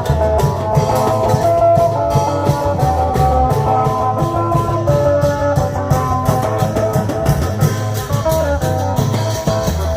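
Isan klong yao long-drum band music: a fast, steady drum beat with a plucked-string melody line over it.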